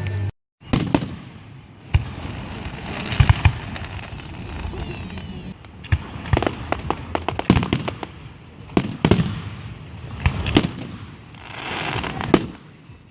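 Aerial fireworks bursting: many sharp bangs, some in quick clusters, with crackling and hissing between them.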